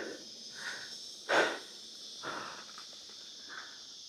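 A steady high insect buzz from the surrounding bush, with a person's breathing puffing in and out about once a second, one breath louder about a second and a half in.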